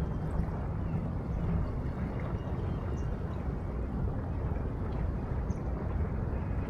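Riverside ambience of the Huangpu River: steady low rumble of wind on the microphone mixed with river water. A faint low hum runs for the first second and a half.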